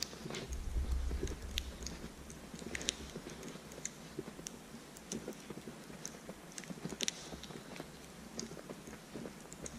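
Footsteps crunching in fresh snow at a walking pace, with scattered sharp clicks and a brief low rumble about a second in.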